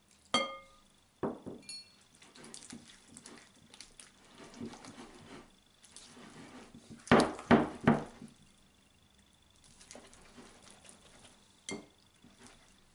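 A whisk beating flour and water into a batter in a ceramic bowl: soft swishing and scraping, broken by clinks and knocks of the whisk against the bowl. One ringing clink comes just after the start, and a quick run of the loudest knocks comes about seven seconds in.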